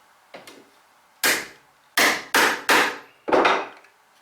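A hammer strikes a bevel edge chisel, driving it into the wood to chop a mortise. A light tap comes first, then five loud blows, three of them in quick succession about a third of a second apart.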